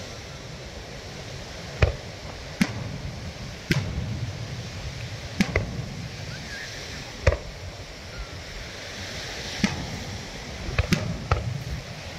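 Aerial firework shells bursting: about ten sharp bangs at irregular intervals, some in quick pairs, over a steady background rush.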